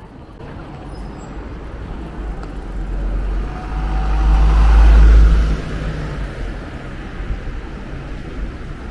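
A London black cab driving past close by. Its engine and tyre noise grow louder, peak about five seconds in, then fall away quickly, over steady city traffic noise.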